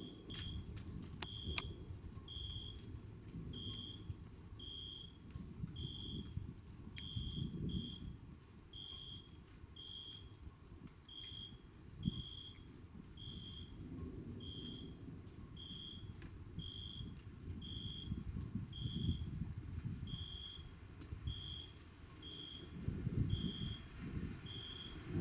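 A short high-pitched chirp or beep repeating about once a second, slightly unevenly, over a low rumbling background, with a few sharp clicks in the first two seconds.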